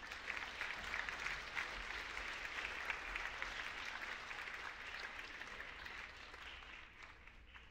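Audience applauding: dense clapping that dies away over the last couple of seconds.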